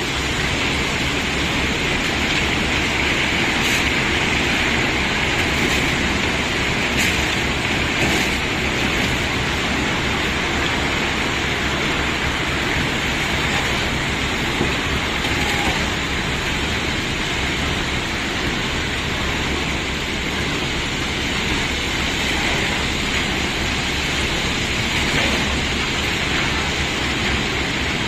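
A load of cobblestones being unloaded: the stones slide and pour in a steady rushing clatter, with a few sharper knocks about 4, 7 and 8 seconds in.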